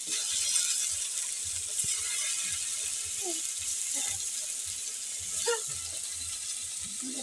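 Onions frying in an aluminium pot on a small gas-cylinder burner: a steady sizzling hiss.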